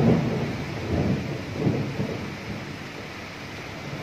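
Rolling thunder rumbling in low swells, loudest at the start with two more about a second apart, then dying down, over a steady hiss of rain.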